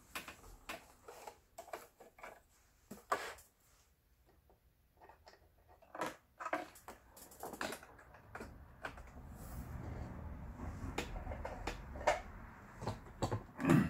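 Scattered light clicks and knocks of hands handling a sewing machine and a piece of fabric, with a quiet stretch about four to six seconds in; the machine is not yet sewing.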